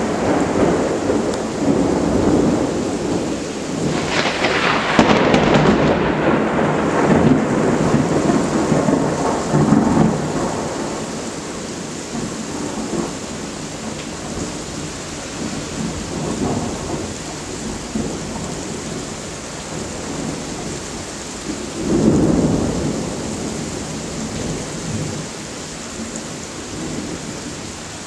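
Thunder rolling over steady heavy rain in a thunderstorm: a long rumble in the first ten seconds with a sharper crack about four seconds in, then dying away, and a second rumble about twenty-two seconds in.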